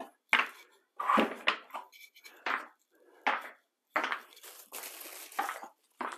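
Epoxy spike shoes clattering and scraping on bare concrete as they are stepped into and strapped on: a string of short, sharp knocks and scrapes, with a longer rasp about five seconds in.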